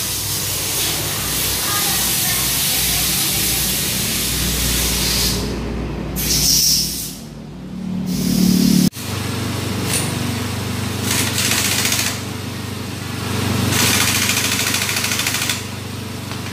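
Pneumatic impact wrench running in several long bursts, fastening parts during reassembly of a Kawasaki KLX engine; the sound changes abruptly about nine seconds in and the last burst cuts off sharply shortly before the end.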